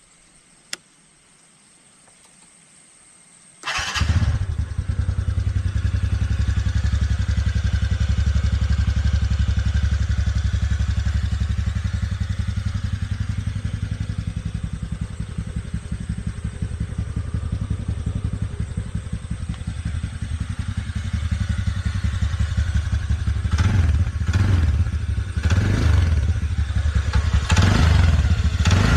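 A TVS Ntorq 125 scooter's single-cylinder engine is started about four seconds in and settles into a steady, low idle. In the last few seconds the throttle is blipped several times in quick succession, and the exhaust note rises with each rev.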